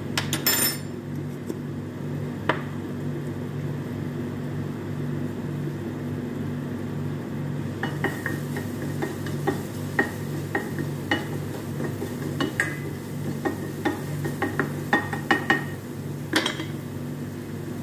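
A spatula stirring minced garlic in oil in a stainless steel frying pan, rapid scrapes and taps against the pan from about halfway through, over a faint sizzle of frying and a steady low hum.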